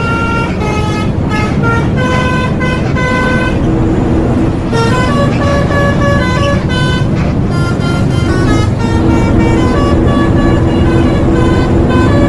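Basuri telolet horn playing a quick melody of short, changing horn notes, with a pause about four seconds in, over a steady low vehicle rumble.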